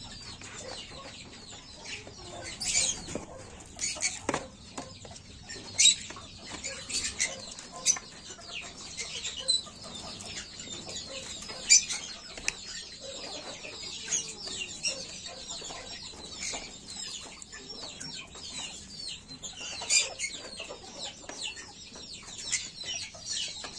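Japanese bantam (Chabo) chickens clucking: many short, high calls scattered throughout, with a few louder ones.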